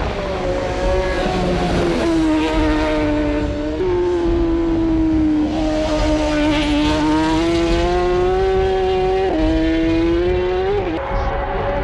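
Racing motorcycle engine at high revs, held near full throttle, its pitch climbing slowly and then stepping abruptly with gear changes about two, four, nine and eleven seconds in.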